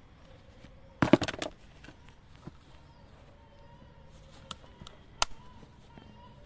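Sharp clicks from a clutch purse's metal frame clasp being handled: a quick clatter of clicks about a second in as it is opened, and a few single clicks near the end as it is shut.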